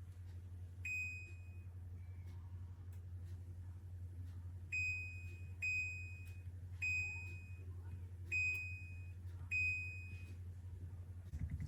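SAMKYO T40 countertop dishwasher's control panel beeping: six short, high electronic beeps at uneven intervals, the first about a second in and the rest from the middle on, over a low steady hum.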